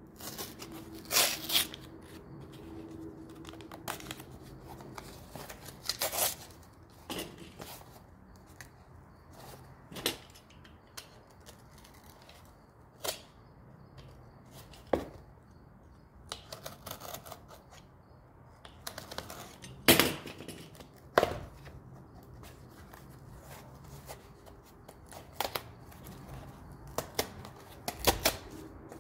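Packaging being unwrapped by hand: irregular crinkling, rustling and tearing of paper and plastic wrap, with sharp clicks and taps, a few louder bursts scattered through.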